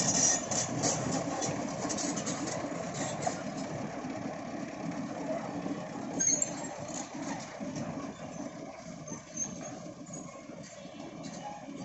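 Heavy excavator's engine running with a steady rumble that slowly fades. Light clattering is heard over the first few seconds.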